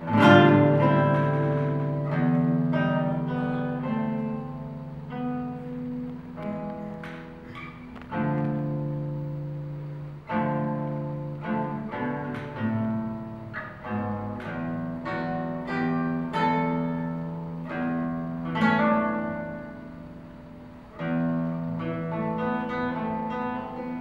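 Solo classical guitar played fingerstyle: plucked melody notes and chords ringing and fading over held bass notes. Firm chord attacks come at the start and several times after.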